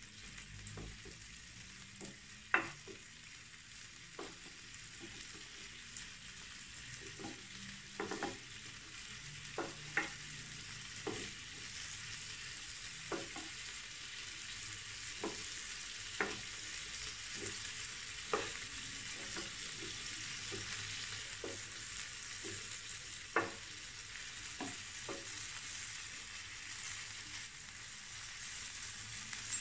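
Prawns sizzling in hot oil in a nonstick pan, the sizzle growing a little louder, with scattered light knocks of a wooden utensil as they are turned over.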